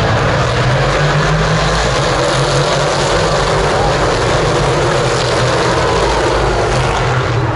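Race car engines and exhausts on the circuit, a loud steady drone from cars running on track, with spectators talking over it.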